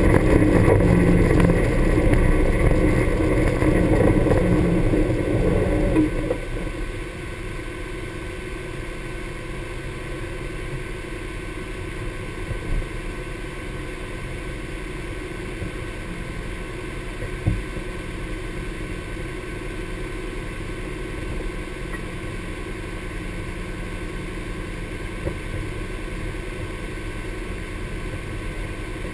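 Honda Pioneer 1000 side-by-side's parallel-twin engine running under way, then settling to a steady idle about six seconds in as the vehicle stops. A brief click is heard a little past halfway.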